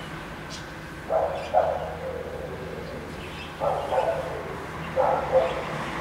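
Dogs barking in short pairs of barks, three bouts about a second or two apart, over a steady low background hum.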